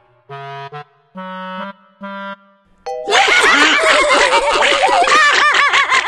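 Three short held comic notes on a woodwind-like instrument, then from about three seconds in several cartoon characters laughing together, loud and overlapping.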